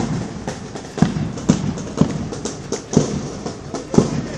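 A column of soldiers marching in step, their boots striking the road together in a steady beat about twice a second.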